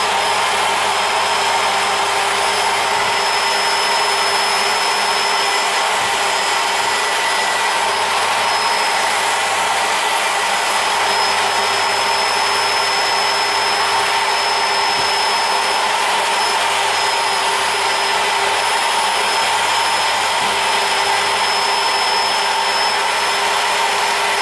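CNC-mounted trim router spinning at about 10,000 rpm while its 2 mm bit cuts plywood at a slow feed: a loud, steady motor whine with a high tone over the noise of the cut, without change throughout.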